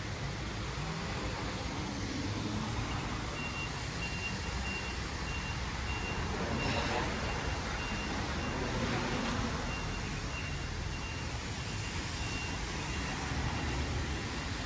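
Vehicle reversing alarm sounding a repeated high beep about twice a second, starting a few seconds in, over a steady low rumble of road traffic.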